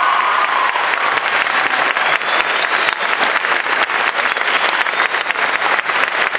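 Audience applauding steadily and thickly after a choir's final song, with a held vocal note or cheer fading out in the first second.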